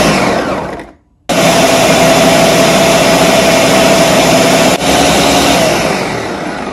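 Countertop blender motor running at full speed with a steady whine, pureeing green peppers, onion and fresh herbs with a little water. It winds down and stops about a second in, starts again at once, and winds down near the end.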